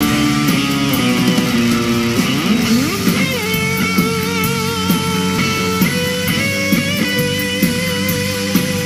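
Instrumental rock music led by electric guitar over a steady beat. A note slides upward about two and a half seconds in, followed by long held notes with vibrato.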